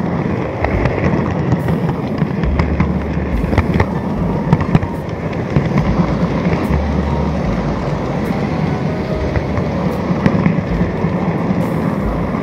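N-gauge model train running on its track, heard close up from an onboard camera car: a steady, rough rattling clatter from the wheels and mechanism, broken by frequent sharp clicks.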